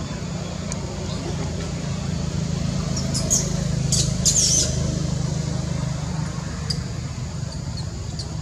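Baby macaque giving a few short, shrill screams about three to four and a half seconds in, begging to nurse from its mother, over a steady low hum.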